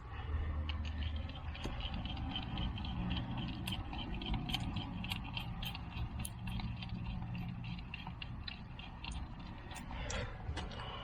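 Irregular small metallic clicks and scrapes of worm-drive hose clamps being handled and fitted around a rubber pipe coupling, thickest in the middle, with a short scrape near the end. A steady low hum runs underneath.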